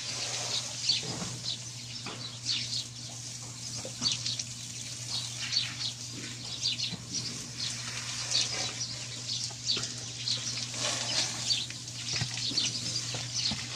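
Water from a garden hose spraying and splashing onto a horse's wet coat, with small birds chirping repeatedly throughout.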